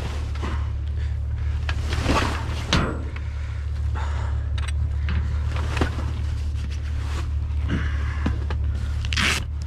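Scrap metal and junk clattering and scraping as it is pulled from a pile, in scattered knocks and rattles, over a steady low engine hum.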